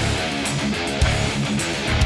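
Heavy rock music: a fast electric guitar riff over drums, with a hard drum hit about once a second.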